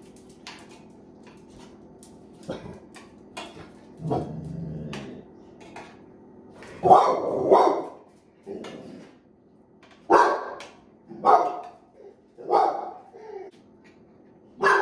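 A dog barking repeatedly, single barks spaced a second or more apart, the loudest pair about seven seconds in.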